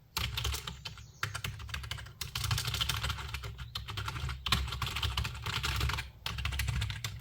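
Fast typing on a basic wired computer keyboard: a dense run of key clicks, broken by short pauses about a second, two, four and six seconds in.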